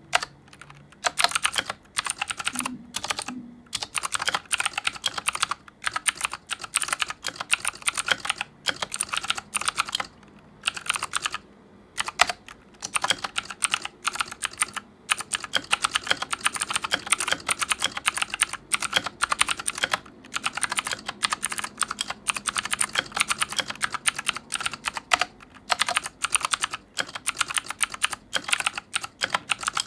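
Fast typing on an AJAZZ K870T mechanical keyboard with clicky blue switches: a dense clatter of key clicks in runs, broken by brief pauses.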